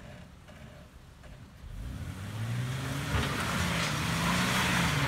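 Jeep Wrangler TJ engine idling low, then revving up under throttle as the Jeep climbs the rocky trail, growing steadily louder from about two seconds in.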